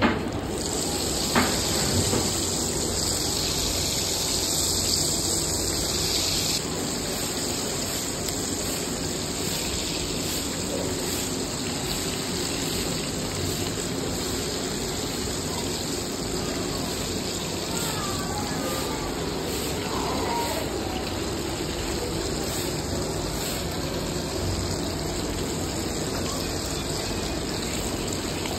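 Egg pakoras deep-frying in a large karahi of hot oil, a steady bubbling sizzle. It is louder and brighter for about the first six seconds, as fresh battered pieces go into the oil, then drops suddenly to a steadier sizzle.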